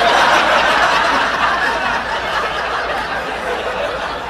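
Audience laughing at a punchline, loudest at the start and easing off a little.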